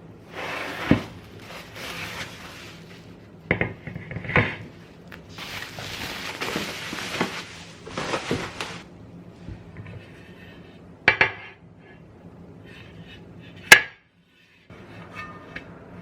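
Dishes, glass and cutlery clinking and clattering as they are handled in a kitchen, with scraping and rustling between the knocks. One sharp clink, the loudest sound, comes near the end.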